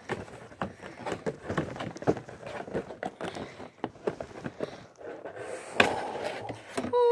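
Clear hard-plastic packaging of a mini football helmet crackling and clicking as it is handled and the helmet is pulled out, with a louder crack about six seconds in.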